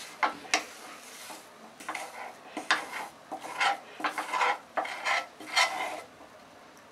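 Steel spoon scraping and clinking against a non-stick frying pan, rasping up the hard residue left by beer boiled down with salt. Two sharp clinks near the start, then a run of scraping strokes that stops about six seconds in.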